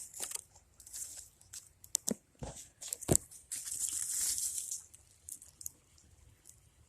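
Crinkling and rustling noises with a few sharp clicks, and a longer rustle in the middle.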